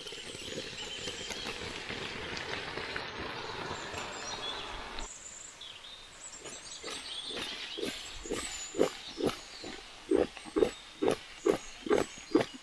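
Tempering sizzling in hot oil in a cooking pan, which stops abruptly about five seconds in. From about eight seconds in comes a regular run of short grunting pulses, about two a second.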